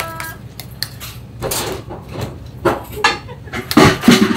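Metal clinks and knocks of long-handled single-fish taiyaki irons being handled and a ladle against a metal batter bowl, a string of short strikes with the loudest near the end.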